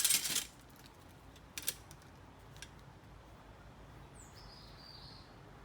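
Quiet outdoor ambience with a single high bird call about four seconds in, sliding down in pitch. A short burst of hiss opens it, and a couple of faint clicks come earlier.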